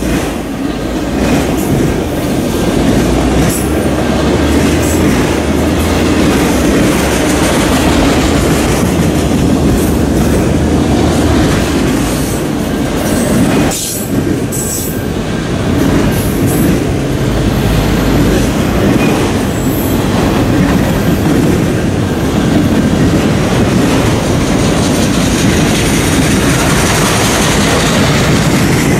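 Freight train of autorack cars rolling past close by: a loud, steady rumble and clatter of steel wheels on rail, with brief high wheel squeals around the middle.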